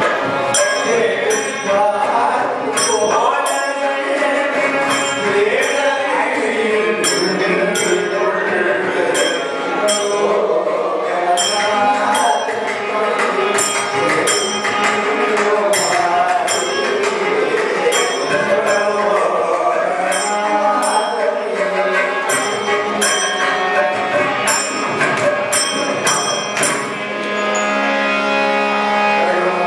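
Carnatic devotional bhajan: male voices singing with harmonium and mridangam, and small hand cymbals striking a steady beat. Near the end the cymbal strokes stop, leaving held harmonium and voice notes.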